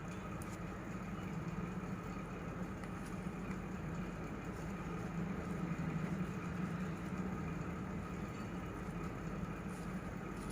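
A steady, low mechanical hum, a little louder about halfway through.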